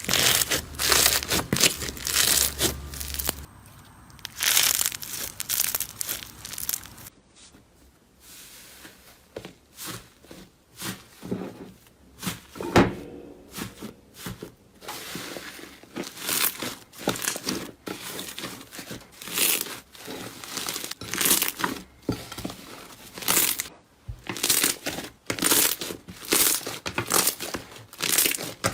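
Slime being squeezed, pressed and stretched by hand: a quick run of short squishing and crackling sounds, changing abruptly a couple of times as one clip cuts to the next.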